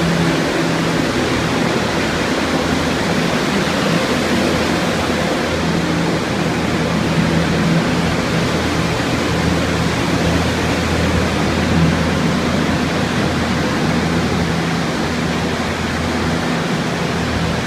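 Many restoration air movers and dehumidifiers running together: a loud, steady rush of blown air with a low motor hum underneath.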